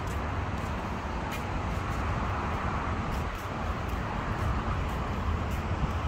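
Steady outdoor background noise with a low rumble, without a clear single source.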